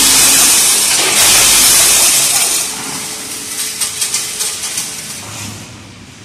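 Small metal coil springs pouring down a multihead weigher's dimpled stainless-steel hoppers and discharge chute: a dense metallic rushing clatter for the first couple of seconds that thins into scattered clinks and fades.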